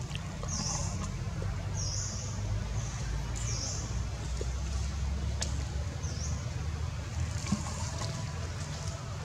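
Outdoor ambience: a steady low rumble with a short, high-pitched call repeating about every one to two seconds, and a few faint clicks.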